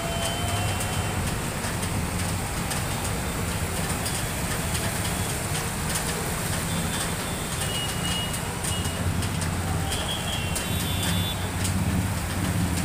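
Road traffic on a flooded street: car and motorbike engines running as they drive slowly through water covering the road, with a steady wash of noise.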